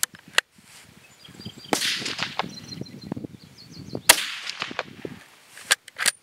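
A single shot from a 7.62x39mm Zastava M85 Mini Mauser bolt-action rifle about four seconds in, the loudest sound, a reload set off by a salvaged large rifle primer that has fired. The bolt clicks as it is worked at the start and again just before the end.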